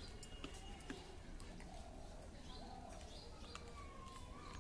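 Birds calling: scattered short, high chirps with a longer, steadier call near the end, over a low background rumble.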